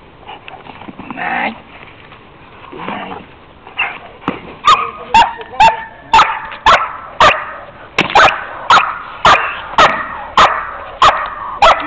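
German shepherd barking hard and fast, about two barks a second, starting about four seconds in, while he is worked up at a swung bite sleeve in protection training.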